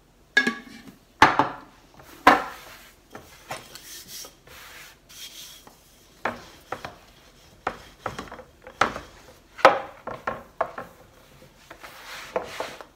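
Wooden rolling pin rolling out shortcrust pastry on a wooden pastry board: a series of irregular rubbing strokes and knocks of wood on wood.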